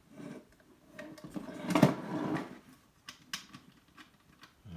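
Plastic and metal parts of a car radio unit clicking and rattling as they are handled and pried apart by hand, with a louder clatter about two seconds in and a few sharp clicks after it.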